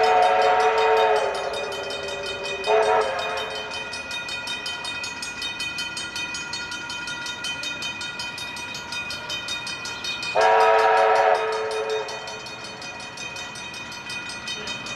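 Whistle of NZR Ab class steam locomotive Ab 608 sounding as it approaches a level crossing: a long blast, a short one, then after a pause another long blast. Steady ringing of the crossing's warning bells runs underneath.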